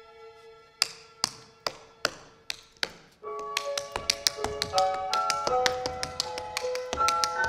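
Tap shoes striking a stage floor: a held note of the music dies away, and about six single taps ring out, evenly spaced about every half second. At about three seconds the music comes back in, with quicker taps over it.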